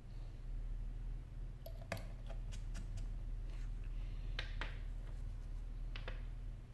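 A few light clicks and taps of small hand tools and phone parts being handled on a workbench, over a steady low hum.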